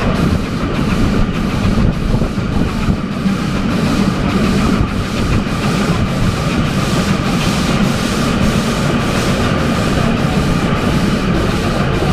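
Adler replica steam train running, heard from an open carriage: a steady rush of wheels on rails and wind, with a regular beat of about two a second.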